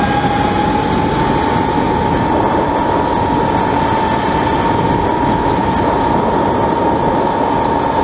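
FPV quadcopter's electric motors and propellers whining at a near-steady pitch, rising slightly about a second in, over a loud rush of prop wash and wind, picked up by the drone's onboard camera.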